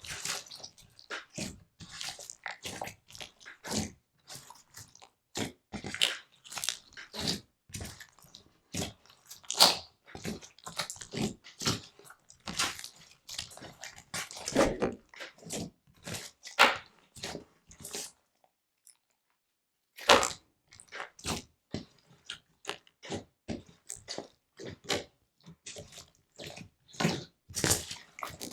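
Slime being squished and played with: a quick, uneven run of sticky pops, clicks and squelches, broken by a pause of about two seconds a little past the middle.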